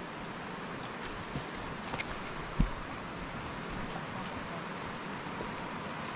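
Forest insects calling in a steady, high-pitched chorus. A single low thump sounds about two and a half seconds in.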